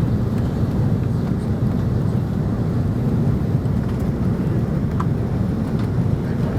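Steady low rumble of an Airbus A330-300 airliner, even in level throughout.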